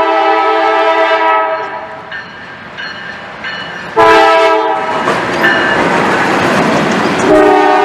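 Norfolk Southern freight diesel locomotive's air horn sounding a chord of several tones: a long blast, a short blast about four seconds in, and another blast starting near the end. Between the blasts the locomotives pass close by, and their engines and wheels make a loud steady rush.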